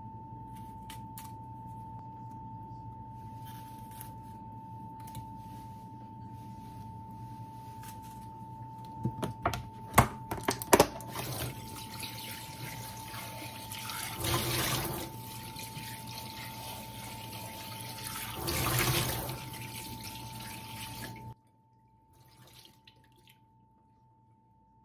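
Water running and splashing in a stainless steel kitchen sink, swelling louder twice, after a few sharp knocks against the sink; it cuts off abruptly near the end.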